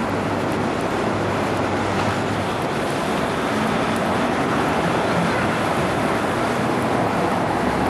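Steady city street noise: a constant wash of traffic, with a low hum during the first couple of seconds.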